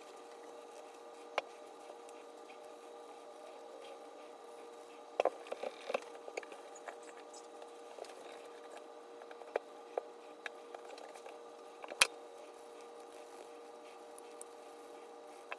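Fine steel wool scrubbing rust off a steel rifle barrel, faint and steady, with scattered light clicks and taps of the metal, the sharpest about twelve seconds in, over a steady low hum.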